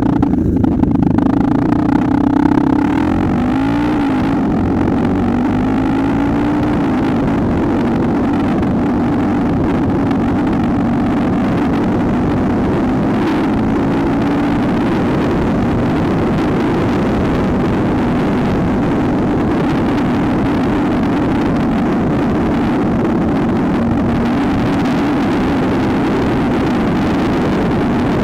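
Trail motorcycle engine revving up and shifting through the gears in the first few seconds, then running steadily at cruising speed.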